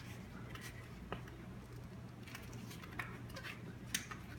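Hands working a new puncture-resistant bicycle tire's strong bead onto the rim: scattered rubbing of rubber on the rim and small clicks, with sharper clicks about a second in, about three seconds in and near the end, over a steady low hum.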